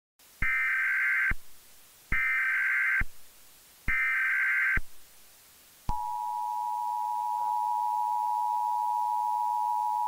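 Emergency Alert System SAME header: three short bursts of warbling data tones. About six seconds in, the steady two-tone EAS attention signal (853 and 960 Hz together) begins and is held.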